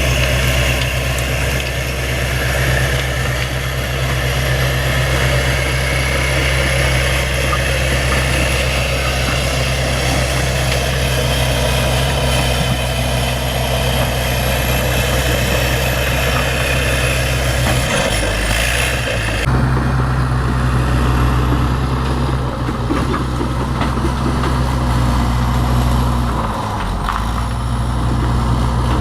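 Bulldozer's diesel engine running steadily, with a couple of brief dips in engine speed, one past the middle and one near the end.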